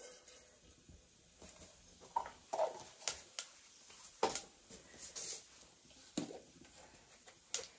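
Cumin seeds frying in hot oil in a steel bowl over a wood fire: a faint steady sizzle with about five sharp pops scattered through it.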